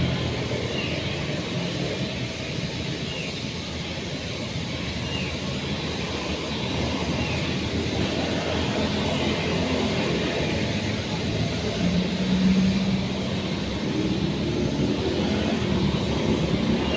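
An engine running steadily at an even speed, a continuous drone with a faint high hiss that pulses regularly over it.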